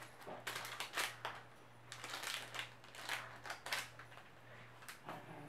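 Plastic candy wrapper crinkling in the hands as it is handled, in a string of short irregular crackles.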